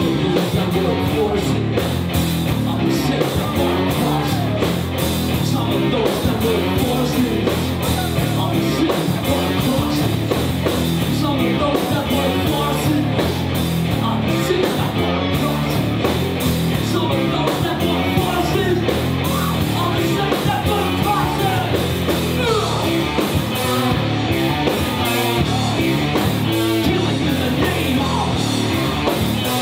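Live rock band playing loud with electric guitars, bass and drums, in a steady driving rhythm.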